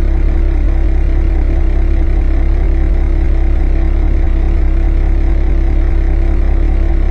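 Car engine running at a steady speed, with a deep, even drone and no revving.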